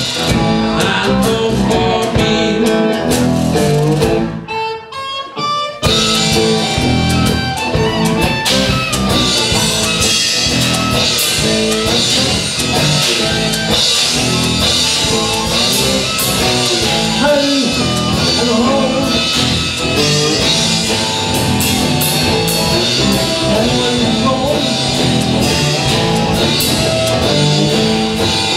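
Live blues band playing an instrumental break: harmonica solo through the vocal microphone over cigar-box guitars and drums. About four seconds in, the band drops out for a moment, leaving one high, rising line, then the full band comes back in.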